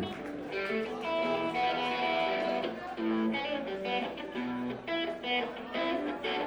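Guitar playing the instrumental opening of a rock song, chords strummed and picked in a steady rhythm, with no singing yet.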